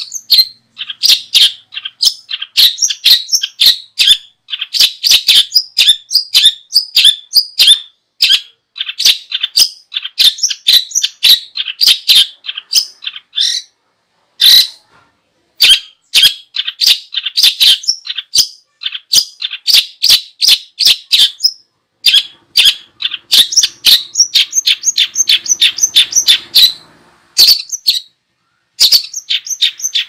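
Small songbird calling in rapid, sharp, high-pitched chattering phrases of a few seconds each, separated by brief silences.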